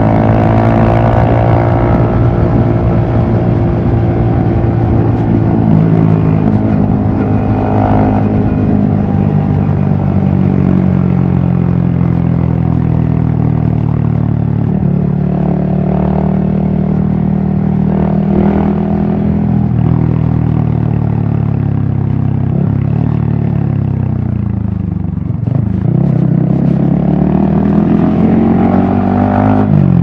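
Yamaha XSR155's 155 cc single-cylinder engine running under load at road speed, its note easing slowly lower and higher with the throttle. About three-quarters of the way through the pitch falls away briefly as the throttle closes, then climbs again as the bike accelerates, with another quick dip and rise at the very end.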